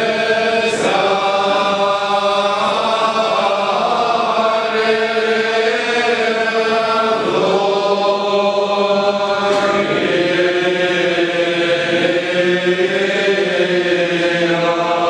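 Men's voices chanting an Orthodox liturgical hymn together, in long held chords that change every few seconds.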